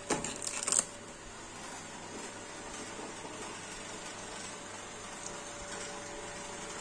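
Clear plastic packaging tray crinkling and crackling as a piece is pulled out of its compartment, over in about the first second. After that only a steady hiss with a faint steady hum.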